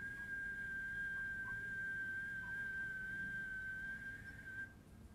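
A single long whistled note held at one steady high pitch for about five seconds, wavering only slightly, then stopping shortly before the end.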